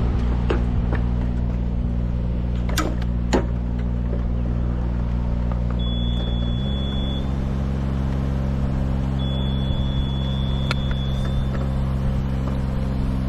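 An engine running steadily at low speed, its pitch stepping up slightly about halfway through. Two sharp snaps come around a quarter of the way in.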